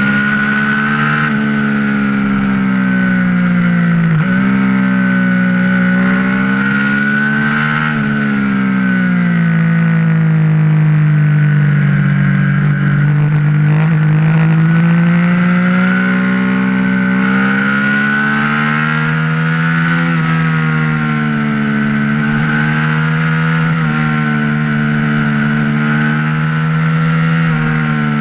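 Motorcycle engine under way. Its note climbs and drops sharply twice in the first eight seconds as it is shifted up through the gears, then falls and rises slowly with the throttle.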